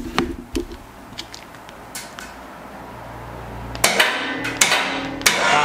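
A few sharp metallic clicks and creaks, then from about four seconds in a quick run of loud metal clanks and knocks.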